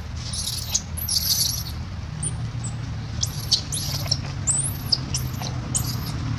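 Infant macaque giving a run of short, very high-pitched squeals, in a first cluster near the start and a second, denser one from about three seconds in. A steady low rumble runs underneath.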